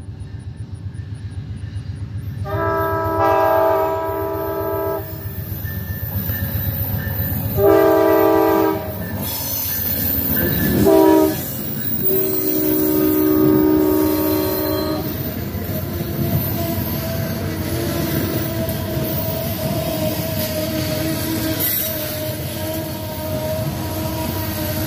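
Amtrak diesel locomotive's air horn sounding the grade-crossing signal: two long blasts, a short one, then a long one, as the train arrives. The passenger cars then roll past with wheel noise and a steady whine.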